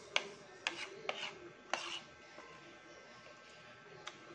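Metal spoon and fork scraping and clinking against a plate of rice. There are several sharp clinks and short scrapes in the first two seconds, then only a faint click near the end.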